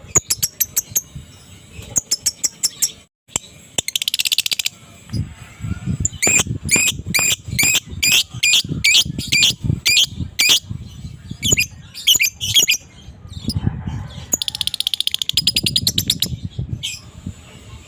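Lovebird calling: sharp, high chirps repeated in quick series, broken by bursts of fast, continuous chattering trill (the 'ngekek' of a fighter lovebird) about four seconds in and again near the end.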